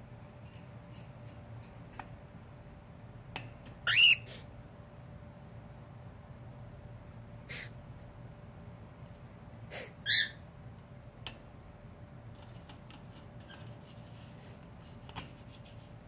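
Cockatiel giving short, sharp chirps: a loud one about four seconds in, a softer one a few seconds later and another about ten seconds in, with a few light clicks between.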